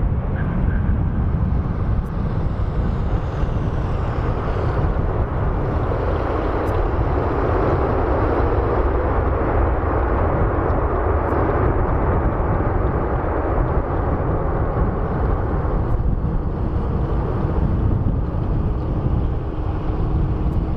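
Boeing 777F's two GE90 engines in reverse thrust on the landing rollout: a loud, steady roar over a deep rumble. It swells a few seconds in, holds for several seconds, then eases toward the end as the reversers are brought back.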